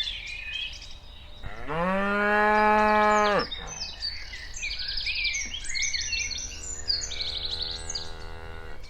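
A cow mooing: one long call of nearly two seconds that rises in pitch at the start and then holds steady, followed near the end by a second, fainter moo.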